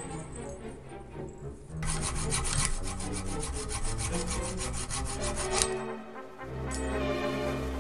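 Hand hacksaw sawing in quick, even rasping strokes for about four seconds, starting about two seconds in and stopping near the end, over background music with brass.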